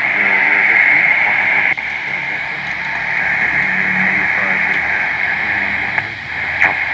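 Homebrew BITX SSB transceiver's speaker giving steady shortwave band hiss while tuned to the 20-metre band, with only faint traces of a weak voice signal buried in the noise. The hiss drops a little, suddenly, about two seconds in, and there is a short click near the end.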